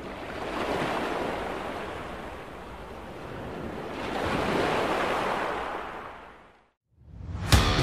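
Ocean surf: waves washing in twice, each surge swelling and then ebbing away, dying out to silence. Near the end a guitar music track starts.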